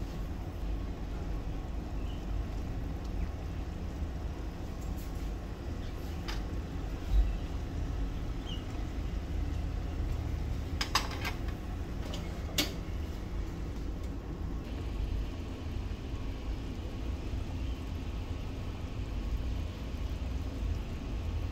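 Steady low kitchen rumble, with a few short sharp clicks of a utensil against the clay pot as fried tofu and pork are set into the soup.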